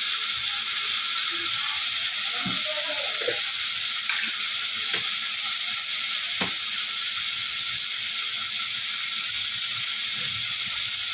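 Onion and spice masala sizzling steadily in hot oil in a kadhai, with a few faint clicks.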